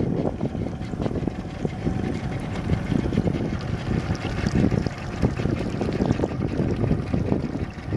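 Wind buffeting the microphone: a low, uneven rumble that swells and fades.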